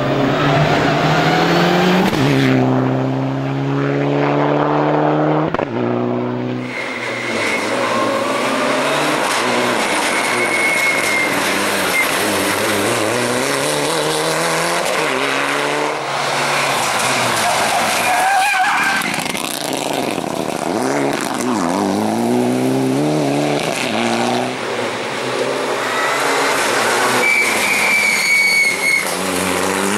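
Mitsubishi Lancer Evo IX rally car's turbocharged four-cylinder engine revving hard, the pitch climbing and dropping again and again through gear changes, with a few short high squeals. The sound jumps abruptly a couple of times as separate passes are joined.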